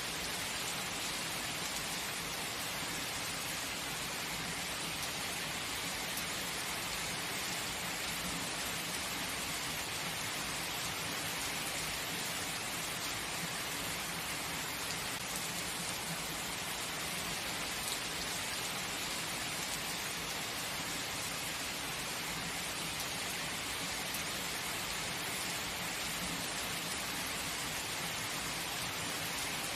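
Steady heavy rain falling, an even, unbroken hiss with no thunder.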